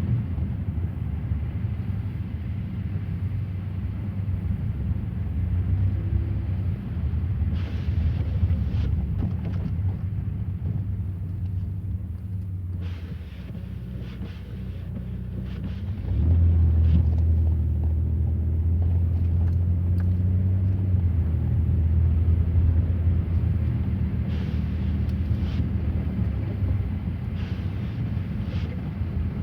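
Car being driven on a snowy road: a steady low rumble of engine and tyres, which gets louder a little past halfway.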